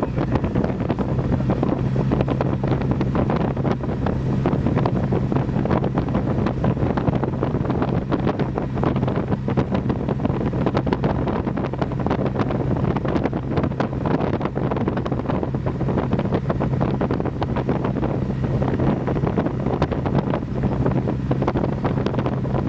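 Cessna 172's piston engine and propeller running steadily, a constant low drone with rushing airflow noise, as heard inside the small plane's cabin.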